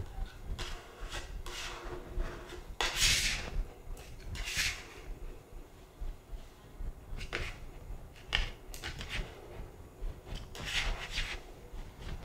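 Plastic card scraping across wet protective film on a setting board, squeegeeing water out from under the sheet: a string of short scraping strokes at uneven intervals.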